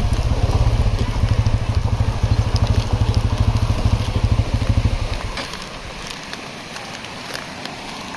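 Motorcycle engine running with a throbbing, pulsing note, which dies away about five seconds in, leaving a steady hiss.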